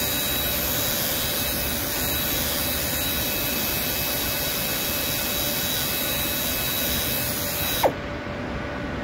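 Pneumatic carpet shearing tool running steadily with a high whine as it trims the rug's pile. It shuts off near the end with a sharp click and a short falling tone.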